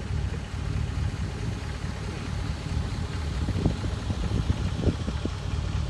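Pickup truck engine idling steadily, a low rumble, while it boosts the boat's dead battery through jumper cables.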